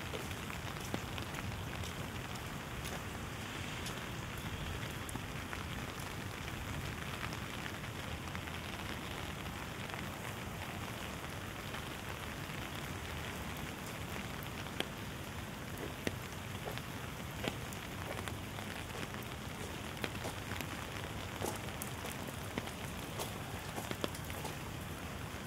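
Steady rain falling, a continuous hiss with single drops ticking sharply here and there.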